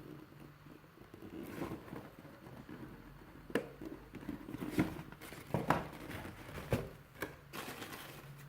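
Packaging being handled and opened for an unboxing: rustling and crinkling, with about five sharp clicks and taps in the middle stretch.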